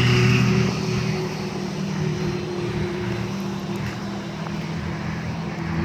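An engine running steadily, a constant low hum with a few held tones under a noisy haze.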